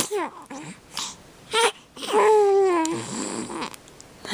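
Baby vocalizing: a few short sounds, then one longer cooing sound about two seconds in that falls in pitch.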